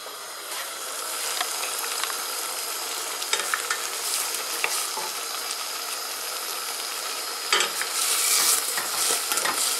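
Diced potatoes and carrots sizzling in a little water, without oil, in a stainless steel pot, as a steady hiss with a few light knocks of a wooden spoon against the pot. The sizzle swells louder about eight seconds in.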